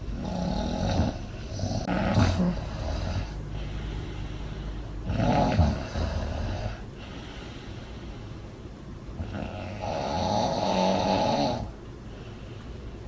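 A young woman snoring loudly with her mouth open: four separate snores with quieter breathing between them, the last one the longest.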